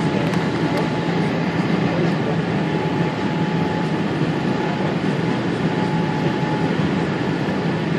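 Steady cabin noise inside a Boeing 787 Dreamliner airliner, an even rush with a faint steady tone running through it.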